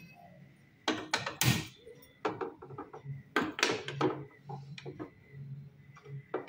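A gas stove burner being lit: a string of irregular sharp clicks and knocks from the knob and igniter, with some clatter at the stove.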